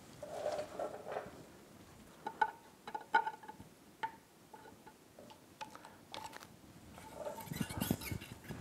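Screwdriver tip prying against the metal driveshaft collar and water pump parts of an outboard lower unit: a scatter of light metallic clicks and scrapes, then a brief rustling handling noise near the end as the collar comes free.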